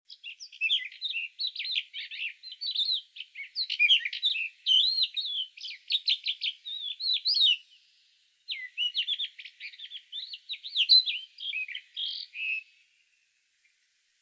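A songbird singing two long phrases of rapid, varied high chirps and short whistled slurs, with a brief pause between them; the song stops a little before the end.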